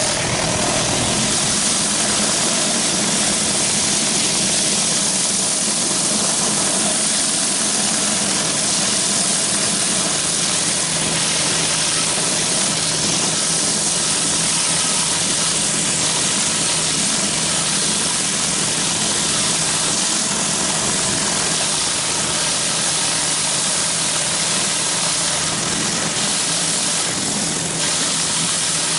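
Pressure washer running steadily while a 14-inch B.E. Whirlaway surface cleaner is worked over concrete: a constant loud hiss of spinning water jets hitting the driveway over a steady motor hum.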